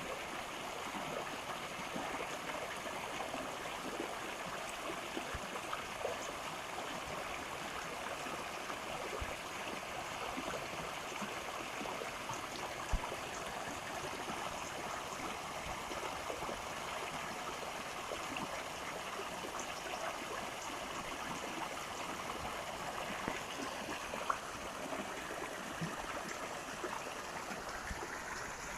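Stream water flowing steadily, with a few faint knocks.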